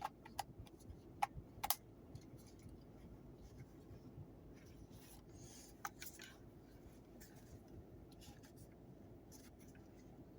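Handling noise from a small device being worked by hand: scattered sharp clicks and light rubbing, with the loudest clicks in the first two seconds and another about six seconds in.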